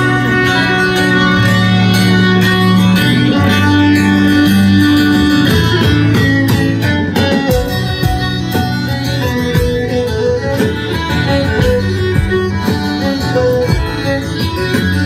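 A live band plays a Celtic folk tune with strummed acoustic guitar and bowed fiddle. Drum hits come in more strongly about halfway through.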